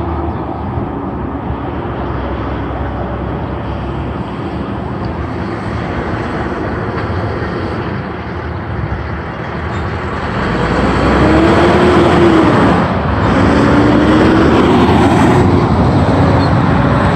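Street traffic: cars and pickup trucks driving past. From about ten seconds in a nearby vehicle gets louder, its engine pitch rising and falling as it accelerates past.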